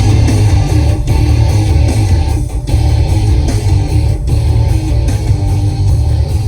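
Background music: a guitar-driven track with strummed electric guitar, a heavy bass line and a steady beat.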